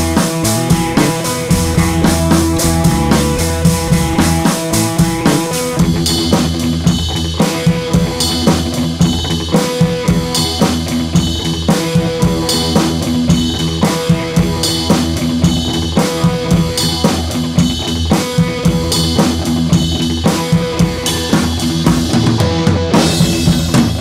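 Background music with a drum kit playing a steady beat; the drum pattern changes about six seconds in.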